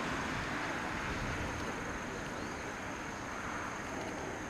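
Engine noise from a four-engine Boeing 747-400 freighter on short final, flaring to touch down: a steady jet rush that slowly eases.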